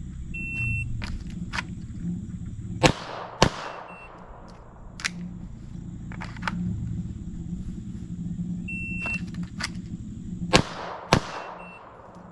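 Shot-timer start beep, then a Glock 48 9mm pistol fired twice about half a second apart, each shot with a ringing echo. Drawn from the holster on the beep; the whole sequence repeats near the end: a second beep and another pair of shots. Fainter cracks between are other guns going off on the range.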